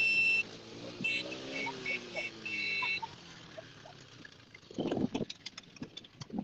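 Quad bikes in a gravel yard: a horn beeps, first once held briefly, then in a quick series of short beeps, while a small quad engine revs up and eases back down. Scattered clicks and a short low rumble follow about five seconds in.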